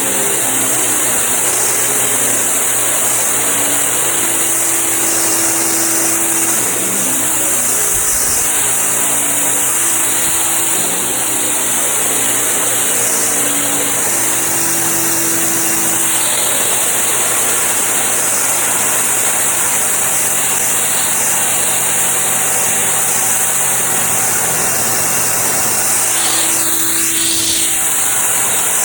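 Stanley 2050 PSI pressure washer running with its yellow nozzle, blasting water onto concrete to strip off caked drywall mud. Its loud, steady hiss of spray sits over a steady low hum from the pump.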